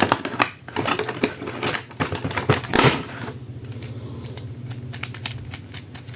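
Crinkling and clicking of plastic toy packaging and action-figure parts being handled, dense for about three seconds and then fainter with scattered clicks.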